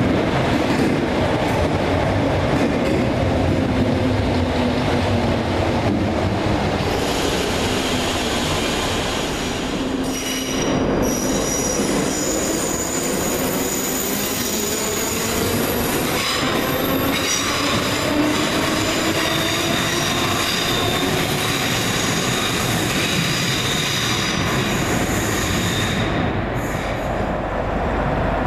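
ScotRail electric multiple-unit trains running past the platform, a Class 318 first and another unit after a cut about ten seconds in: traction motor whine gliding up and down in pitch over steady wheel-on-rail noise, with high-pitched wheel squeal through the second half.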